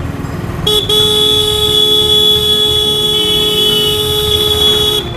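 A vehicle horn held down in one long steady blast of about four seconds. It starts about a second in and cuts off suddenly near the end, over a low rumble of road traffic.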